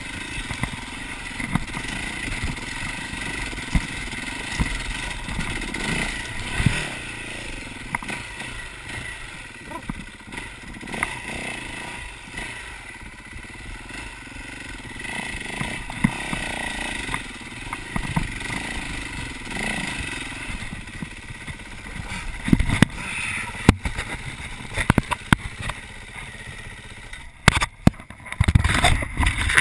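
Single-cylinder off-road motorcycle engine running and revving as the bike climbs a rough, rocky dirt trail, with frequent knocks and rattles from the bike over the ruts. Sharper knocks and bangs come near the end.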